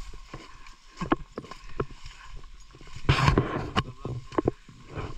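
Footsteps of people walking on a rough trail: irregular knocks and crunches, with a longer, louder scuff about three seconds in.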